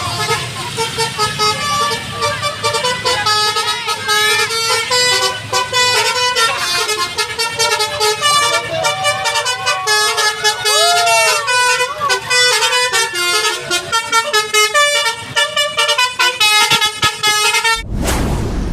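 Telolet bus horn, a multi-tone musical horn, playing quick runs of changing notes like a tune, with some shouting voices. A sudden loud whoosh near the end.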